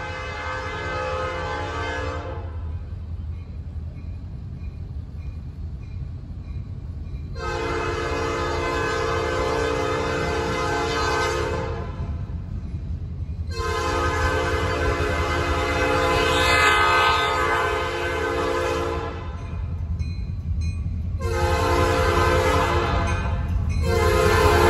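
Norfolk Southern diesel locomotive's air horn sounding a chord in blasts for a grade crossing: one ending about two seconds in, two long blasts, a short one and a final long one starting near the end, the long-long-short-long crossing signal. Under it, the low rumble of the approaching train grows louder.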